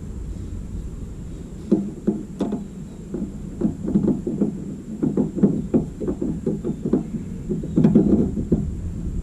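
Irregular run of short plastic knocks and clicks from hands working a turn-signal bulb socket and plug in a minivan's front corner lamp housing, starting a couple of seconds in and clustering near the end, over a low steady rumble.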